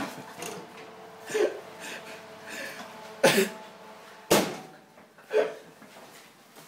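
A baking tin is slid into an oven with a clatter, then one sharp bang about four seconds in as the oven door is shut. Short throaty vocal noises come in between.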